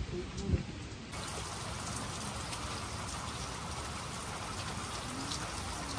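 Steady rain falling, starting abruptly about a second in as an even hiss with fine patter.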